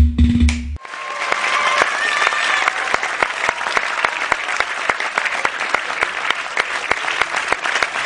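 Music with a heavy drum beat cuts off suddenly under a second in, and an audience breaks into dense applause, with some cheering over the first couple of seconds of clapping.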